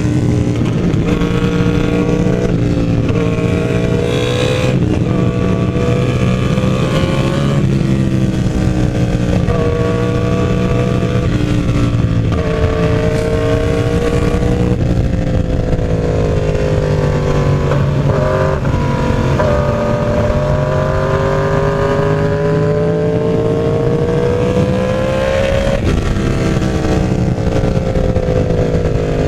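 Yamaha R1's inline-four engine running under way, its pitch climbing and dropping back again and again with throttle and gear changes, with one long steady rise in revs near the end. A constant rush of noise runs underneath.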